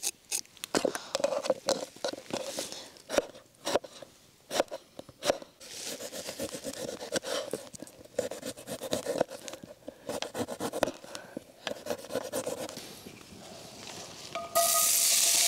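Kitchen knife chopping on a cutting board: a run of sharp taps, then busier scraping and chopping. About a second before the end, a loud steady sizzle starts as chopped food goes into hot oil in a Dutch oven.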